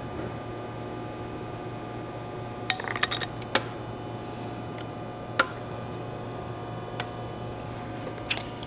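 Sharp metallic clicks and clinks from hands working the caster base of a mobile ADAS calibration stand: a quick cluster about three seconds in, then single clicks every second or two. A steady low room hum runs underneath.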